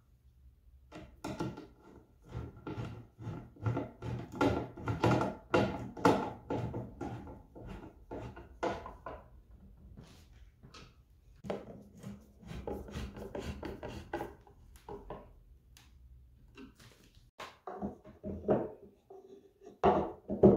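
Hand screwdriver turning a wood screw in old solid wood: runs of rapid, irregular creaks and clicks as the screw turns, with a pause partway through and a few scattered knocks near the end.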